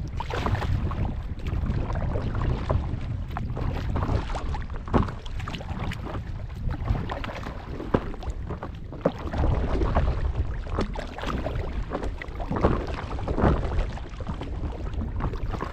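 A paddle dipping and splashing in lake water in irregular strokes, with wind rumbling on the microphone throughout.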